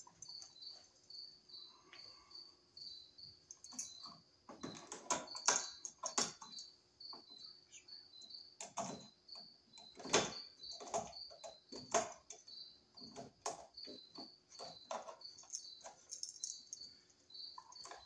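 A steady high chirp repeating about two to three times a second, with scattered clicks and scrapes of a screwdriver and pliers on a wall switch's terminal screws and wires. The loudest clicks come about five, ten and twelve seconds in.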